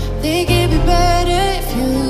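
Background music with a melody that slides between notes over a steady bass.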